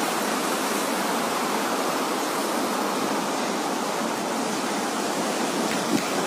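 Steady, even rush of fast-flowing floodwater.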